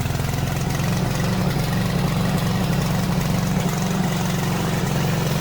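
Loncin 9 hp gasoline engine of a remote-control crawler mower running steadily at idle, just after an electric start from the control-panel button.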